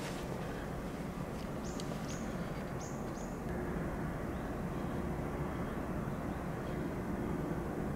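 Forest ambience: a steady low rumble, with a few short, high bird chirps between about one and a half and three seconds in.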